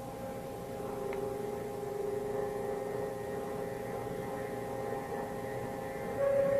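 Background music of sustained synthesizer drone tones held steady, with a louder, higher tone entering near the end.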